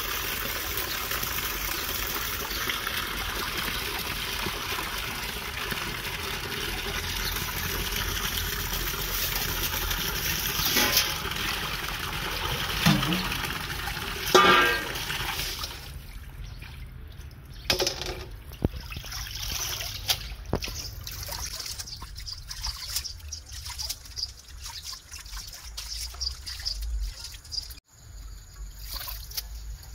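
Tap water runs steadily from a faucet into a metal basin of leafy greens, then stops about halfway through. After that, water sloshes and splashes as hands rub and wash the leaves in the basin. Two short pitched sounds come just before the tap stops.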